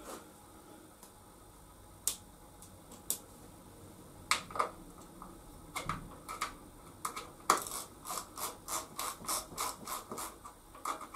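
Ratchet tool clicking as the screws of a sheet-metal panel are loosened: a few scattered clicks at first, then a quick even run of about three clicks a second from about seven seconds in.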